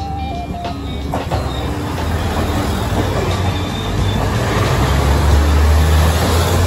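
Limited Express Hida train running past close along a station platform: a low engine drone and wheel rumble that build up and are loudest about five to six seconds in. Background music fades out in the first second.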